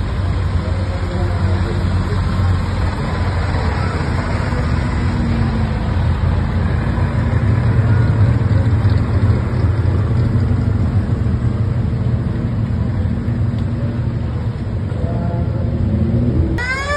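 Vintage cars driving past one after another, their engines running with a steady low sound that grows louder as a car passes close about halfway through. Near the end a siren starts up, its pitch rising and falling.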